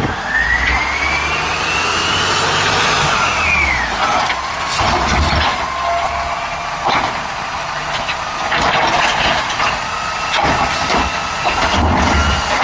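Garbage truck running, a high whine climbing for about three seconds and then dropping away over a low rumble, with scattered knocks and creaks.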